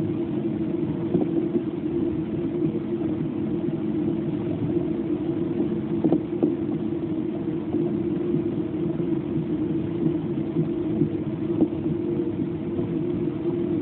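Heavy rain falling with gusty wind, a steady low rush with a faint hum beneath it and a few faint ticks.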